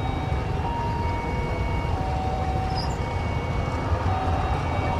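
Twin-engine jet airliner's engines running at idle while it sits lined up on the runway: a steady low rumble with thin whining tones that come and go.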